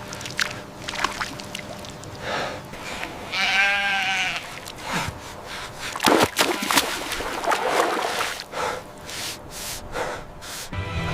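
A lamb bleating once with a quavering, wavering call about three seconds in, amid irregular splashing as it struggles, trapped in a water-filled ditch.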